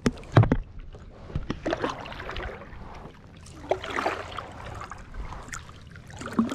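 Canoe paddle strokes in the water, two swishing splashes about two seconds apart, as the canoe is backed up while a hooked bass is brought in. Two sharp knocks come at the very start and are the loudest sounds.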